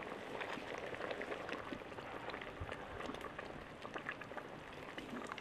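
Lentil and millet gravy with moringa leaves boiling in a clay pot: faint, steady bubbling with many small pops.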